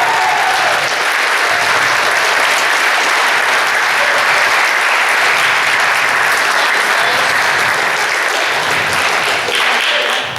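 A theater audience applauding and clapping steadily for several seconds, with some cheering mixed in, dying down near the end.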